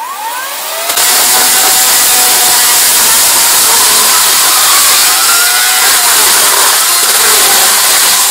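Chainsaw starting up and then, from about a second in, cutting loudly through a laptop's metal and plastic casing, its pitch dipping and recovering as the chain bites.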